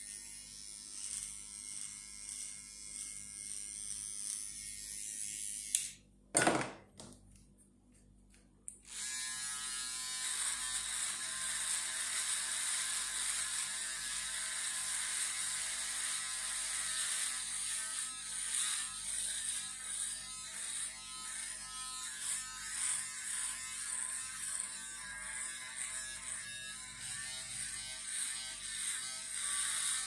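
Electric hair clippers buzzing as they cut beard and neck hair. About six seconds in there is a loud click and a couple of seconds of near quiet. A second click follows about nine seconds in, and a second electric shaver buzzes steadily against the beard on the neck and cheek for the rest.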